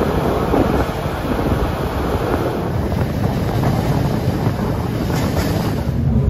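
Wind rushing over the microphone at the window of a moving PESA Link diesel multiple unit, over the steady low rumble of the train running.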